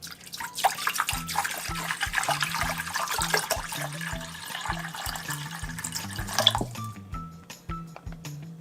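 Wet, crackly slurping and chewing of noodles close to the microphone, thinning out about seven seconds in, over background music with a steady beat.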